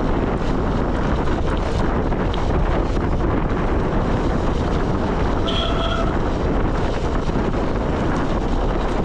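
Wind buffeting the microphone of a handlebar-mounted camera on a gravel bike, over the rumble of tyres rolling on a dirt and gravel road. A brief high pitched tone sounds about five and a half seconds in.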